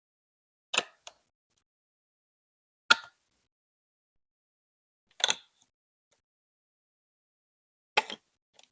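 Plastic Lego Duplo bricks being set down and pressed together: four separate sharp clicks a couple of seconds apart, most followed at once by a smaller click.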